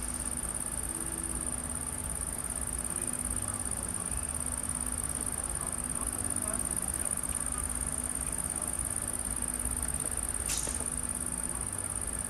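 Steady high-pitched chirring of night insects such as bush crickets over a low steady rumble, with one short sharp click about ten and a half seconds in.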